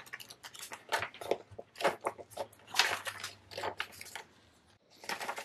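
Glossy paper booklet pages being flipped and handled: a string of short papery rustles and crackles, with a brief dead gap near the end.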